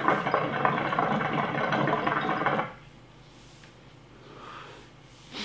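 Hookah water bubbling steadily as a long draw is pulled through it, stopping abruptly about two and a half seconds in.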